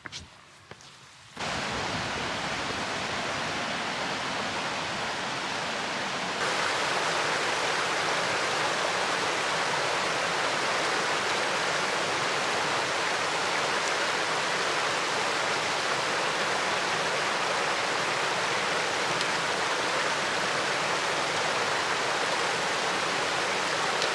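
A shallow, rocky mountain stream rushing steadily. The rush starts abruptly about a second in and grows louder about six seconds in.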